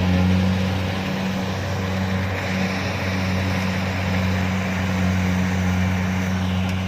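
Kubota DC-70 combine harvester running steadily: a constant low engine drone under a wide rushing noise of the machine.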